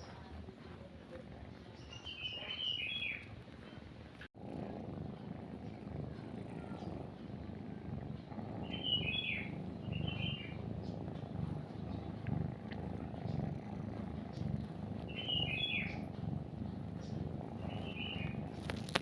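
A nursing kitten purring in a steady, pulsing low rumble, the sign of a content kitten feeding from its mother. Short bird chirps come in every few seconds. About four seconds in the sound cuts out for an instant and the purring comes back louder.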